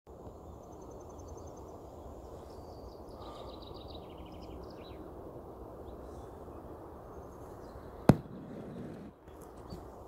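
Fledgling Eurasian wrynecks begging: very fast runs of thin, high-pitched notes, like a firecrest's song but much quicker, heard twice in the first half over a steady low background rumble. A single sharp knock comes about eight seconds in.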